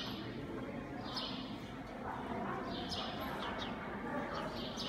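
Dressage horse working across arena sand: soft hoof falls in a steady rhythm, with a short hissing sound every second or so. Faint voices can be heard in the hall.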